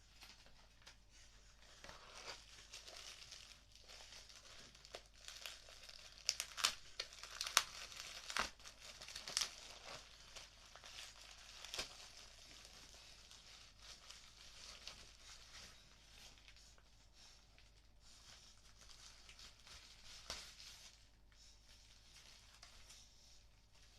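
A mail package being torn open and its packaging crumpled by hand: a run of crackling rips and crinkles, busiest about six to twelve seconds in.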